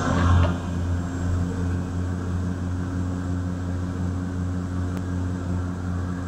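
Steady drone of a DHC-6 Twin Otter's turboprop engines and propellers, heard inside the cabin: a low hum with evenly spaced overtones and a regular throb, over a wash of airflow noise.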